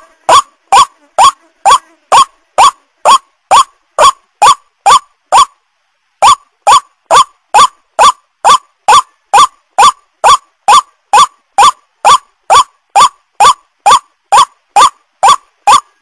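Lure recording of a white-breasted waterhen calling: a short, rising call repeated very regularly about two and a half times a second, with one brief break about five and a half seconds in.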